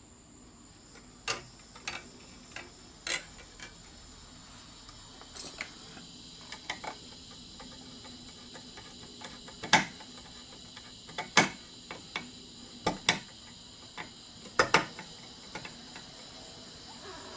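Irregular clicks and taps of a screwdriver and wire against a metal electrical box as a wire is fastened under a terminal screw. There are about a dozen sharp clicks at uneven spacing, the loudest in the second half.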